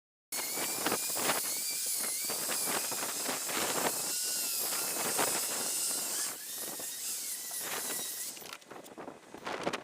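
Steady hiss of water being sprayed over a car headlight during wet sanding, with short rubbing strokes mixed in; it starts abruptly and fades after about eight seconds.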